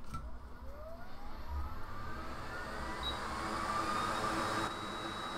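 Hot air rework station blowing to warm an iPhone 11 logic board: its blower whirs up with a whine that rises in pitch over about four seconds, then settles into a steady rush with a faint high tone.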